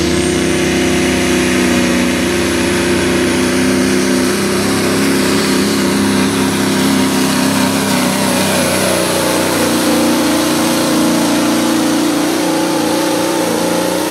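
Diesel semi truck engine held at full throttle under heavy load as it drags a truck-pull sled: a loud, steady drone with a faint high whine above it.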